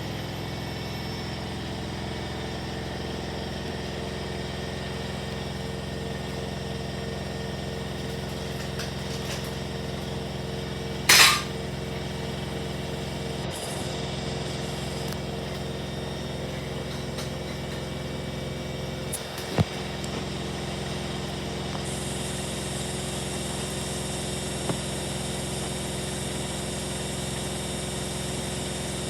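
Beko washing machine running with a steady mechanical hum and a faintly pulsing whine. About 11 seconds in there is a sudden loud, short burst of noise, and near 20 seconds a single sharp click.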